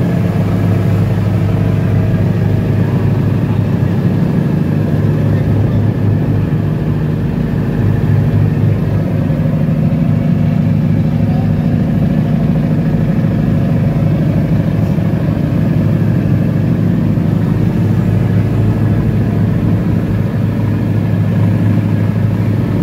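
Ferry boat's engine running steadily under way: a loud, constant low drone.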